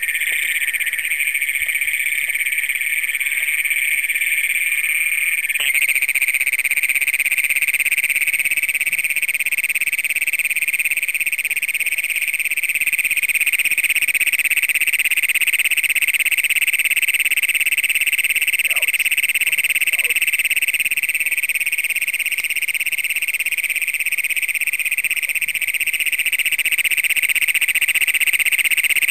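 Chorus of Great Plains toads calling, one of them close by, making a continuous, really loud trill that grows a little fuller about six seconds in.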